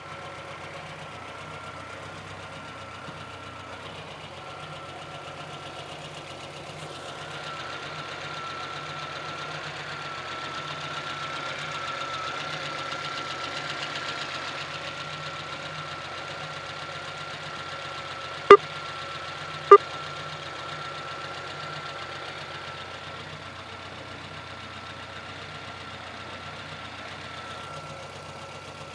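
VAZ-2114 four-cylinder petrol engine running steadily with a knock in it that the owner cannot identify, under a thin steady whine; it gets a little louder through the middle. Two sharp, loud clicks a little over a second apart come about two-thirds of the way through.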